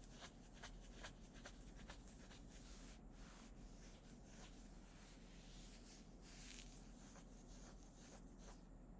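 Near silence: faint room tone with soft, irregular small clicks and scratchy rustles.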